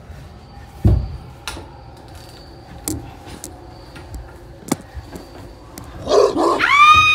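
Scattered knocks and a dull thump from movement inside a narrow artificial cave tunnel, then a loud, long, high-pitched shout from a child near the end.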